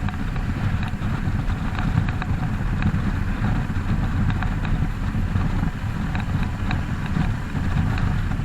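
Royal Enfield Himalayan's single-cylinder engine running steadily on the move, with a heavy, steady rumble of wind on the microphone.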